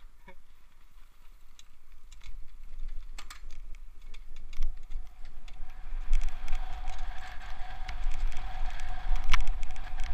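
Mountain bikes rolling down a dirt forest trail: a few rattles and clicks as they set off, then, from about six seconds in, a louder steady whirring as the bike picks up speed, with wind rumbling on the microphone and a sharp knock about nine seconds in.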